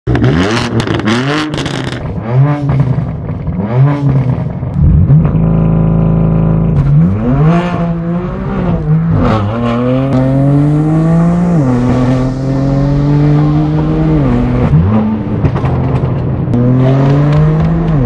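BMW M4 F82's twin-turbo inline-six through a very loud straight-piped exhaust. It opens with sharp crackles and a couple of quick rev blips, then holds a steady rev, then accelerates with the pitch climbing and dropping back at each upshift.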